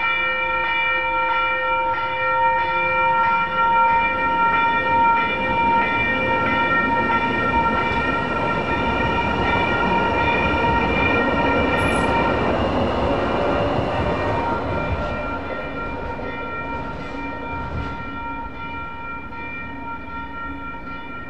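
Railroad crossing bell ringing steadily while a light rail train runs through the crossing; the train's rumble builds to a peak about halfway through and then fades, with a brief high squeal near the middle.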